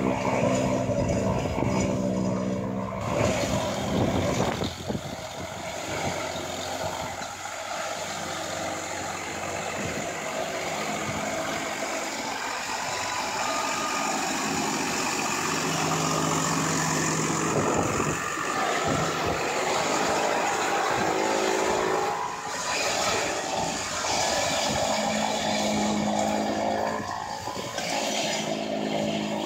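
Tractor engine running steadily with a Maschio Gaspardo Scorpion chopper cutting Napier grass. A dense rushing noise sits over the engine hum from about four seconds in until about twenty-two seconds in, when the engine's hum comes through clearer again.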